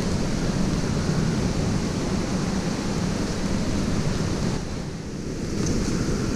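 Steady rush of running water from a waterfall stream, a low, even noise that dips for about a second near the end.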